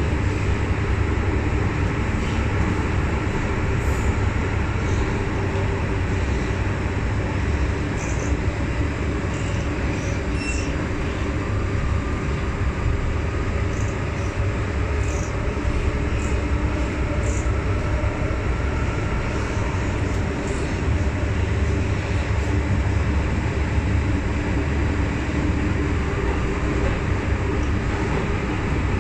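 MTR M-Train electric multiple unit running steadily between stations: a continuous deep rumble of wheels on rails with a faint steady hum from the running gear and a few light ticks.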